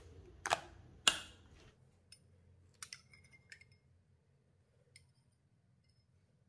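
Two sharp knocks about half a second apart, then a few faint taps and light clinks, one with a short ringing tone, as of utensils handled against kitchen ware.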